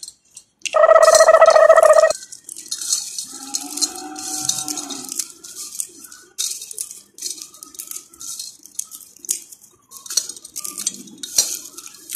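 Roasted peanuts rubbed between the hands in a clay pot to loosen their skins: repeated dry rattling and rustling of nuts against each other and the pot. About a second in, a loud steady tone sounds for about a second; a fainter steady tone follows a little later.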